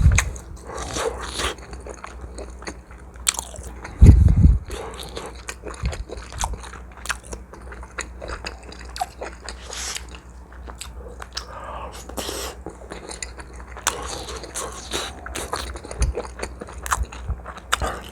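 Close-miked chewing and biting of spicy braised chicken, with wet mouth clicks and crackles, and a loud, dull thump about four seconds in.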